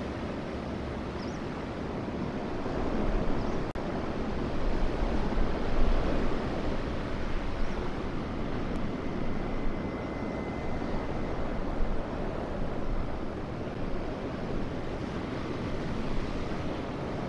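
Surf washing onto the shore in surging waves, with wind buffeting the microphone.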